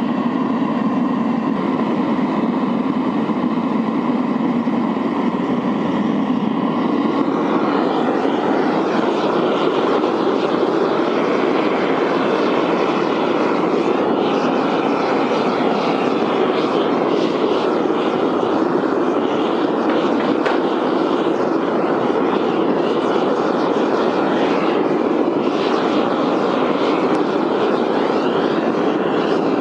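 Small burner firing a backyard melting furnace, running with a steady rushing noise as the aluminum charge melts; the sound turns brighter and hissier about seven seconds in.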